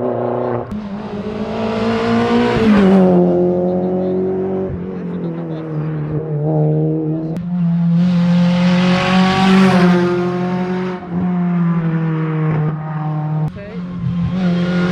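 Rally car engine running hard on a special stage, its note rising and dropping in pitch as it accelerates and lifts. It swells loudest three times: about two seconds in, in the middle and at the end.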